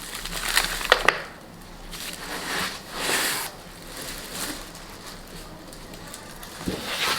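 Packaging being handled and opened: crinkly rustling and crackling in several bursts, with a couple of sharp clicks about a second in, then quieter handling.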